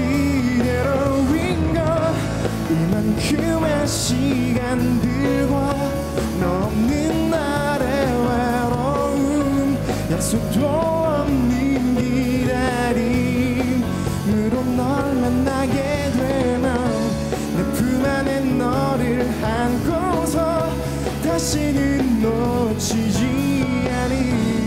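Live pop-rock song: a male vocalist singing over electric guitar, keyboard, bass guitar and drums.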